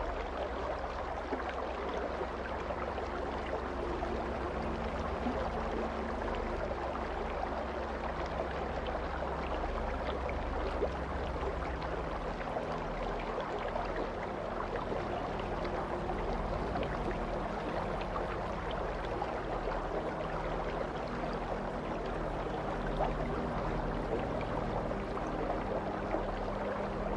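Ambient meditation soundscape: a steady rush of running water like a stream over a low sustained drone, whose low notes shift about halfway through.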